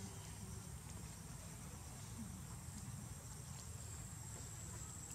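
Faint outdoor ambience: a steady, high-pitched insect trill over a low rumble, with a few faint rustles in the grass where a young macaque is foraging.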